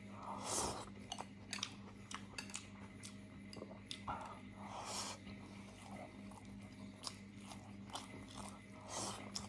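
A man eating mouthfuls of rice with chopsticks, chewing with open-mouthed lip-smacking and many small sharp smacks and clicks. Louder noisy bites come about half a second in, around four to five seconds in, and near the end.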